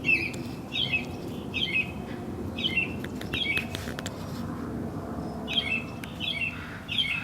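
A bird chirping repeatedly: short, high calls about one a second, with a pause of a couple of seconds in the middle, over a steady low background hum.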